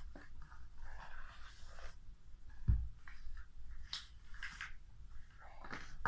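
Rustling and scraping of a cardboard phone box and its packaging being handled, with a dull thump about two and a half seconds in.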